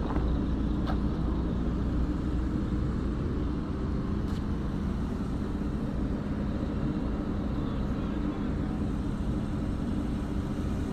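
A machine running steadily: a low hum with a rumble beneath it, and a faint click about a second in and another about four seconds in.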